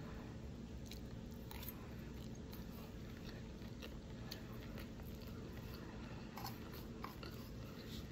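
Close-up chewing of a mouthful of spaghetti mixed with manioc flour, with a few faint, soft clicks.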